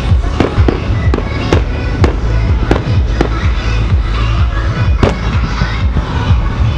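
Aerial firework shells bursting in quick succession, a sharp bang about every half second with a low boom after each, over music playing.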